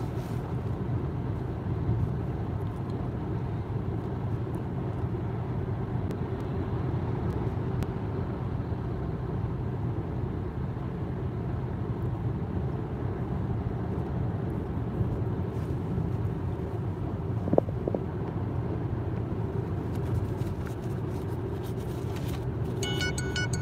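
Steady low road and engine rumble of a moving car, heard from inside the cabin, with one short sharp knock near the end.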